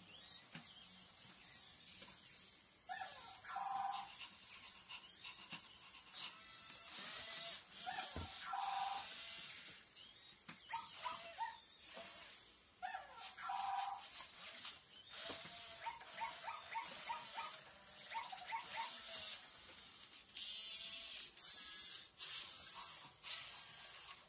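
Toy robot dog playing recorded electronic barks and whines through its small speaker: short pitched calls repeat every few seconds between stretches of high hiss, with a single knock about eight seconds in.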